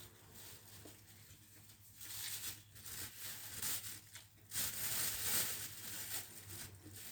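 Close-miked mukbang eating and food-handling noises over a plate of pansit noodles, rustling and hissing, growing louder about two seconds in and loudest from about four and a half seconds.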